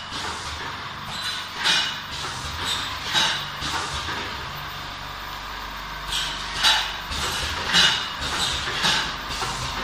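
Tea bag packing machine running: short, sharp hissing clacks from its mechanisms roughly once a second, unevenly spaced, over a steady mechanical hum with a faint whine.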